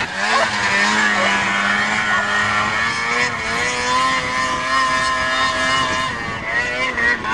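Snowmobile engine running at steady throttle, its pitch rising a little about halfway through.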